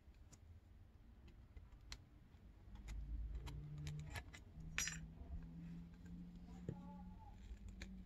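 Scattered small clicks and taps of fingers handling a smartphone and picking at its shattered screen glass, with one sharper click just past the middle. A low steady hum comes in about three seconds in.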